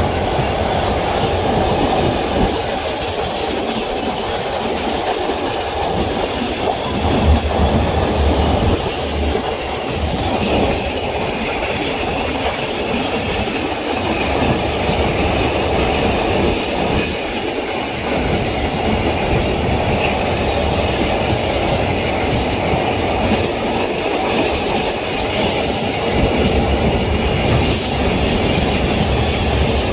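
Freight train of loaded double-deck car-carrier wagons rolling past close by: a steady rumble and clatter of steel wheels on the rails.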